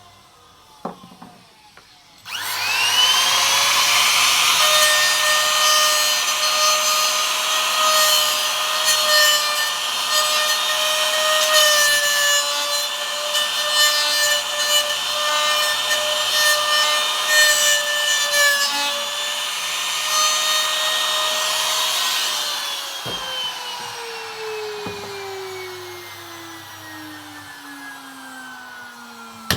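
Electric trimmer (palm router) starting up about two seconds in and routing a mortise in wood, a steady high whine with dense cutting noise. About three-quarters of the way through it is switched off and winds down with a falling whine.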